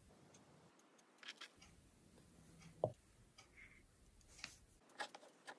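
Faint, scattered light taps and clicks of fingers handling cupcake toppings (raspberries and flaked almonds) over a wooden board, with one louder short knock a little under three seconds in.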